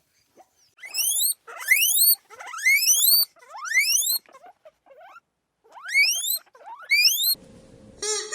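A small animal giving six high squeals, each rising sharply in pitch over about half a second, four in quick succession and then two more after a short pause.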